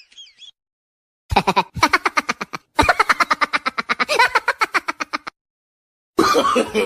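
Comic laughing sound effects: a rapid, high-pitched pulsing cackle in two runs starting about a second in, cut off abruptly, then a lower, wavering laugh starting near the end.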